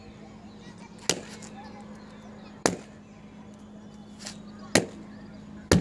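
LPG-filled party balloons bursting one after another as a torch flame reaches them: four sharp pops at uneven intervals, with a fainter one between the last ones, the last pop the loudest.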